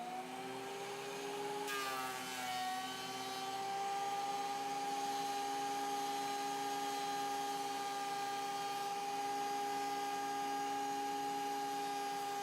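Ridgid benchtop thickness planer's motor and cutterhead spinning up to speed, then running steadily with an even whine. The planer has just had its blades flipped and is being tried out.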